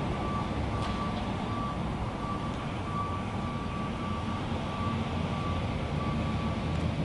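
Steady low rumbling background noise, with a faint high beep repeating at an even pace.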